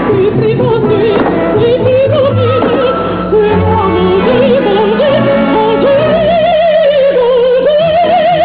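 A woman singing opera with a wide vibrato, the melody climbing to higher notes in the last few seconds, over musical accompaniment.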